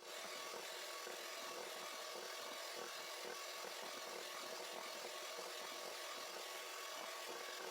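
Electric hand mixer running steadily, whisking black-eyed pea batter to aerate it and make it fluffy.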